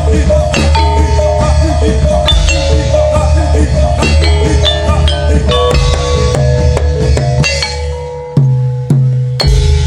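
Gamelan music for a kuda lumping dance: struck bronze metallophones ring out a quick melody over a drum beat. Near the end the playing thins for a moment, then comes back in with a loud low stroke.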